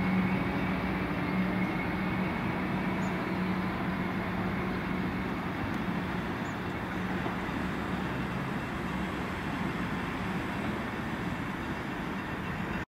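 Comeng electric multiple unit train pulling away from the platform: a steady hum with rolling noise that slowly fades, then cuts off abruptly near the end.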